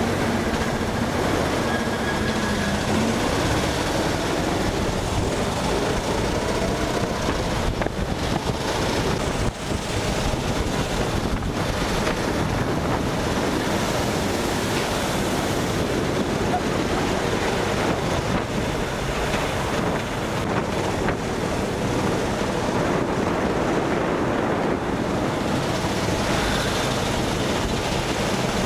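Go-kart engines running hard through a lap, their pitch rising and falling with the revs, half buried under constant loud wind buffeting on the microphone.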